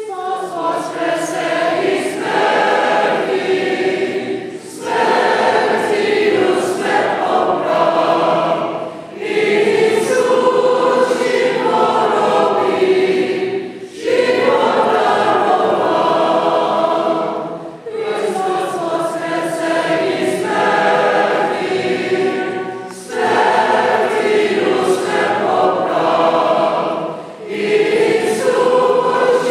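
Byzantine Catholic choir singing unaccompanied church chant, in phrases of four to five seconds with brief breaths between them.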